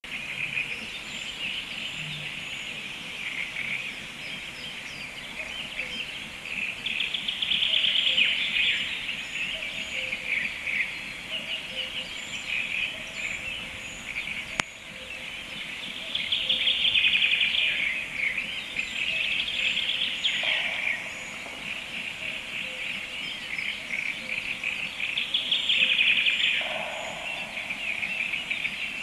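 A chorus of small songbirds singing continuously in forest, swelling into louder stretches of song three times.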